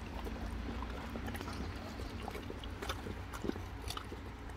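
Boxer dogs chewing pieces of watermelon: a run of irregular short clicks and smacks.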